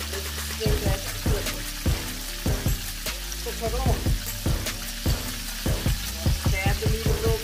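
Battered turkey pieces deep-frying in hot oil in a cast-iron skillet: a steady sizzle with frequent irregular crackles and pops.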